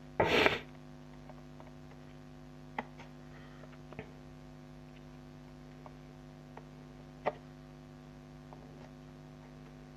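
Steady electrical hum, with a few faint clicks and taps as a small knife picks at the tape on a cardboard figure box. A brief loud rush of noise comes just after the start.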